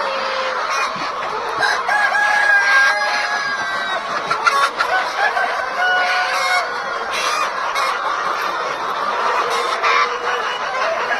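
A large flock of chickens clucking and calling, many birds at once, in a steady dense din with short overlapping calls.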